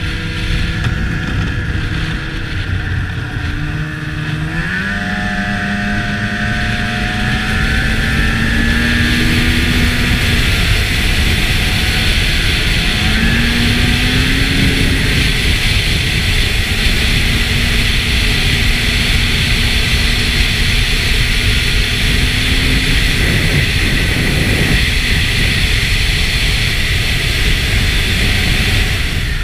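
2003 Ski-Doo MXZ 600 snowmobile's Rotax two-stroke twin running under way. It revs up about four seconds in and again around thirteen seconds, then holds a steady pitch. A loud rushing hiss builds from about eight seconds on.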